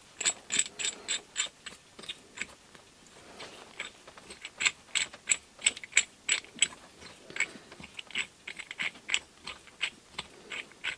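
Steel forcing bolt of a Biltema tie rod end puller being screwed by hand through the puller's threaded body: irregular light metallic clicks and ticks, several a second, with a short lull about three seconds in.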